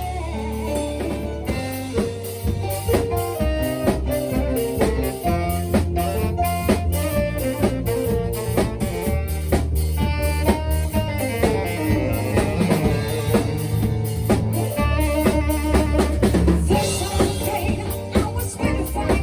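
A live band playing an instrumental passage: drum kit with rimshots keeping a steady beat under bass and melodic instruments.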